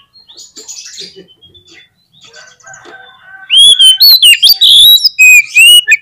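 Oriental magpie-robin (kacer) in full song: soft scattered chirps, then from about three and a half seconds in a loud run of clear whistled notes with quick gliding rises and falls.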